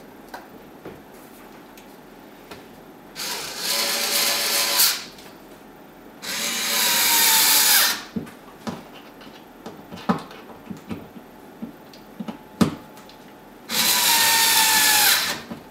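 Black & Decker cordless screwdriver driving the screws of a dishwasher circulation pump cover: three runs of its motor whine, each one to two seconds long, with the pitch sliding down during the second and third. Small clicks of handling come in between.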